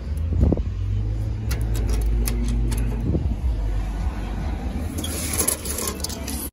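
Keys jangling and clicking against a metal cluster mailbox as its small door is unlocked and opened, a run of sharp metallic clicks about one and a half to three seconds in and more rattling near the end, over a steady low rumble.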